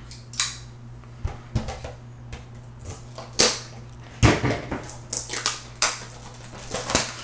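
Cardboard trading-card blaster box being handled and torn open: a string of irregular scrapes, rips and sharp crackles, the loudest about three and a half and four seconds in.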